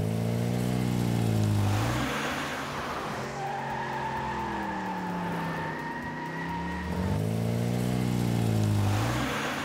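Cartoon car engine sound effect, its pitch rising and falling in three sweeps like revving. A steady high squeal runs through the middle few seconds.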